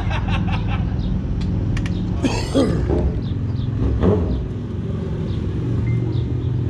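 Sport motorcycle engines idling with a steady low rumble, with a few brief sounds bending in pitch about two seconds in and again around four seconds in.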